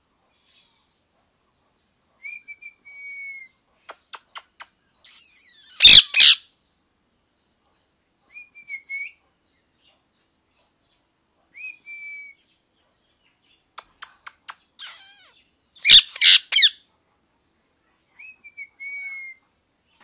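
Rose-ringed parakeet calling: short, soft whistled chirps every few seconds, broken twice by a loud, harsh burst of screeches, about six seconds in and again about sixteen seconds in.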